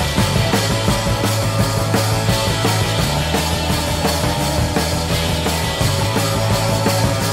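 Rock music with a steady drum beat and bass.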